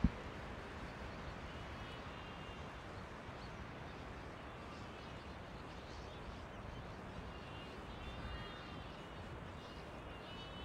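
A flock of bramblings calling faintly: scattered, drawn-out calls come and go, loudest about eight seconds in, over a steady background hiss. A short thump at the very start is the loudest sound.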